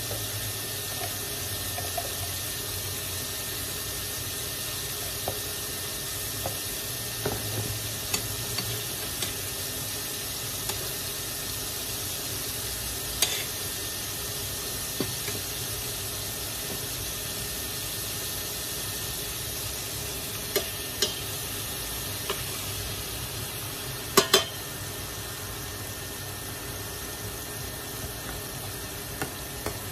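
Battered vegetable strips deep-frying in hot oil in a stainless steel pot: a steady sizzle with scattered crackles and a few sharp clicks, the loudest a quick pair about twenty-four seconds in.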